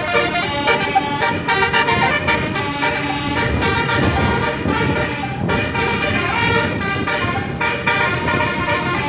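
Telolet Basuri bus horn, a set of electric multi-trumpet horns, playing a melody of held notes that jump in pitch step by step, with a low rumble underneath around the middle.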